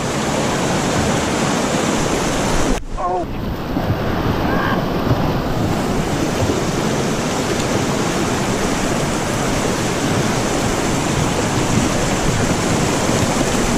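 Fast river water rushing over rocks in a steady loud rush, with a brief drop in level about three seconds in.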